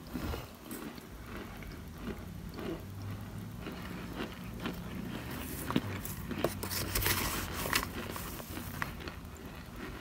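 Light crunches and squeaks as a spoon presses into and breaks up chunks of cornstarch in a foil pan. The strokes are scattered at first and come thickest in the second half.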